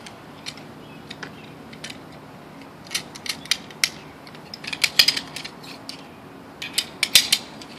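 Metal clicks and clinks as a rescue pulley is opened and clipped onto a carabiner, in a few quick clusters over a faint low hum.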